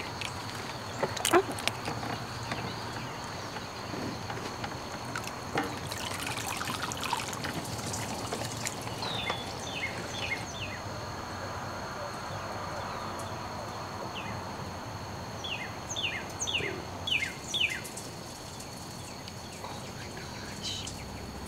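Water trickling and sloshing in an outdoor wooden barrel hot tub as its cover is lifted off, with a couple of knocks from the cover near the start. Insects drone steadily with a high tone, and short chirps come in now and then.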